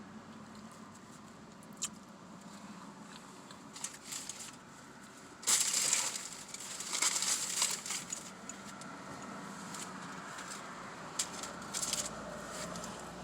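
Paper sandwich wrapper crinkling and rustling as it is handled, in uneven bursts, loudest from about five to eight seconds in.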